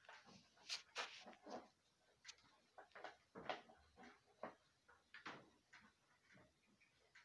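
Faint, irregular clicks and knocks of hands handling and wiring an electricity meter box.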